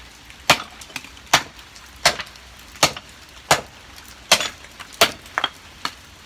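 Hand-forged Viking axe chopping into a wooden plank clamped in a vise: about seven sharp chops, one every three-quarters of a second, with two lighter ones near the end. These are test chops of the freshly finished axe.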